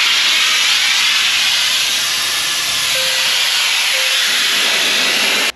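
Compressed air from the truck's air system hissing steadily out of a coiled air hose and its fitting, cold enough to chill the hand holding it. The hiss cuts off abruptly at the very end.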